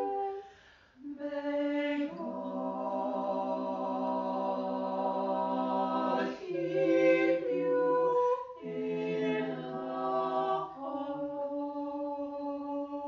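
Unaccompanied choir singing slow, sustained chords, each held for a few seconds before moving to the next, with a brief break about a second in.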